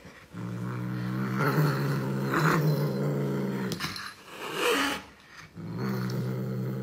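Domestic cat growling low and steadily with a chew stick held in its mouth, pausing for breath about two-thirds of the way through before growling again.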